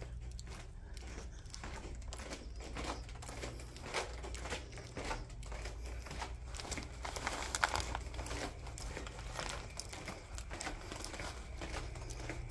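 Irregular crinkling and clicking from someone walking while holding a phone: footfalls on a hardwood floor mixed with handling rustle. A steady low hum runs underneath.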